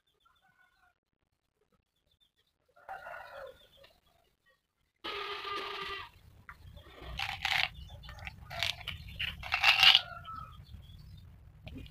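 Chickens: a faint call about three seconds in, a rooster's crow about five seconds in, then a run of loud short squawks and clucks.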